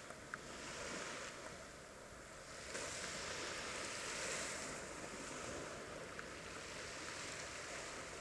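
Gentle surf washing onto a sandy beach, a steady hiss that swells and eases every few seconds, with light wind.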